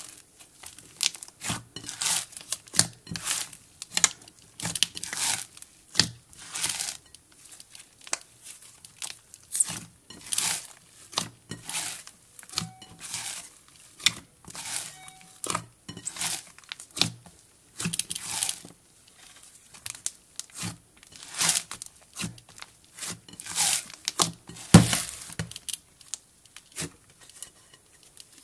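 Cloud slime and jelly slime being stretched, folded and pressed together by hand, making irregular crinkly tearing and squishing sounds, one or two a second.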